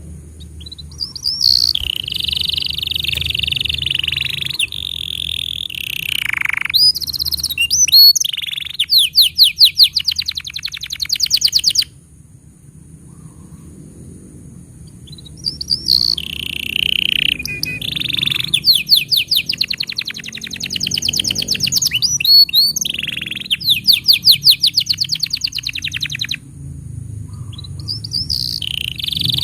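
Canary singing: long song phrases of high buzzy rolls and fast, even trills, in two bouts with a pause of about three seconds between them and a third beginning near the end, over a steady low background hum.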